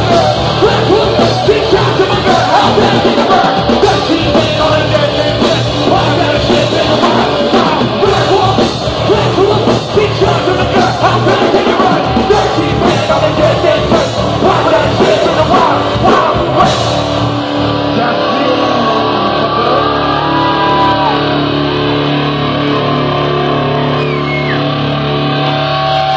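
Live rock band playing loud with a singer. About two-thirds of the way through, the cymbal wash drops away and a chord is left ringing, with a few bent notes over it.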